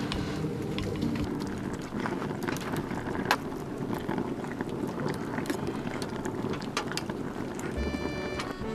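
Metal spoon and chopsticks scraping and clinking against a pot and a steel bowl while rice is served, over a steady low hiss. Background music comes in near the end.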